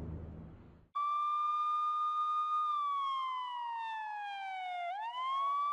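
Siren tone cutting in suddenly and holding one pitch, then sliding down for a couple of seconds and quickly sweeping back up to its steady pitch. A low rumble fades out just before it.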